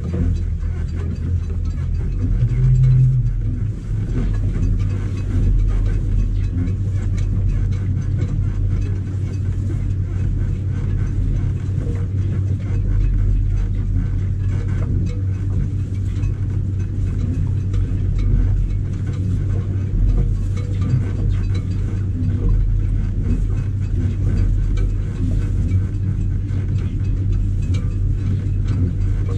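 Electric boat motor running steadily on test through its new EZKontrol controller: a steady low drone, with a brief louder low tone about three seconds in.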